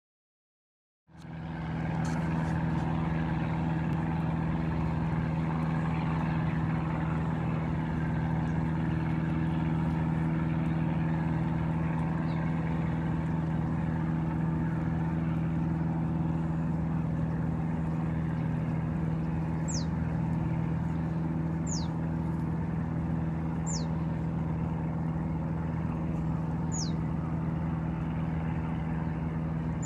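A steady engine drone holding one pitch starts about a second in and runs on. In the last third, a bird gives a short, falling whistled call several times, every two to three seconds.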